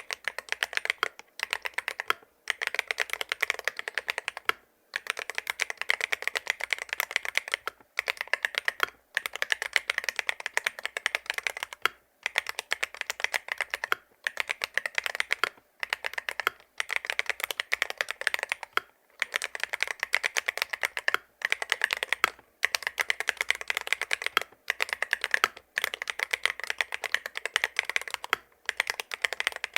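Fast typing on an IROK MG75 Max full-aluminium 75% keyboard with OKT Qinghui magnetic switches and PC keycaps: a dense run of keystrokes broken by short pauses every second or two.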